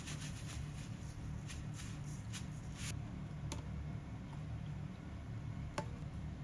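Light clicks and rustles of kitchen items being handled: a quick run of them in the first three seconds, then two single sharp clicks, over a steady low hum.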